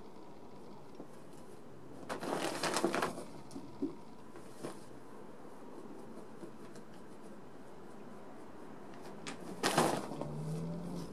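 Newspaper rustling and crinkling in two short bursts, about two seconds in and near the end, as a cat plays with the paper.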